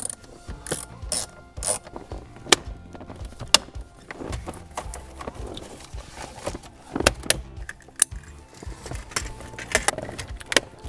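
Plastic dashboard trim of a 2014 Chevy Cruze being handled and snapped back into place with a hand tool: irregular sharp clicks, snaps and knocks, some in quick runs.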